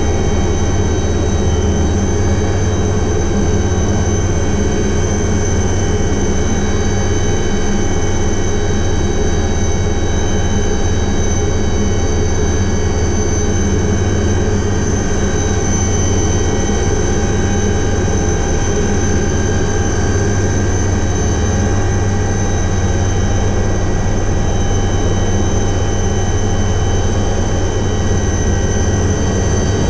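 Alouette III helicopter running steadily, its turboshaft engine giving a constant high whine over the deep drone of the rotors.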